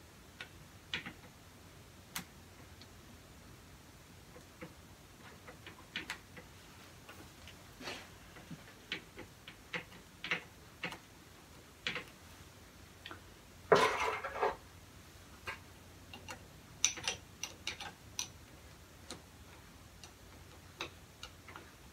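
Scattered light clicks and taps of an air-line fitting and its copper tube being fitted and hand-tightened onto a cylinder of a compressed air engine. A short, louder rattle comes about halfway through.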